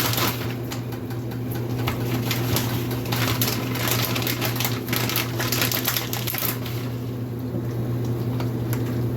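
Kitchen handling at the stove as shredded cheese goes into a pan of ground-beef dip: rapid, irregular clicks and scrapes over a steady low hum.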